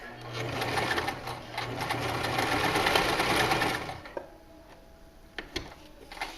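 Janome HD1000 sewing machine running a straight stitch for about four seconds, a steady hum with rapid needle ticking, then stopping. A few faint clicks follow.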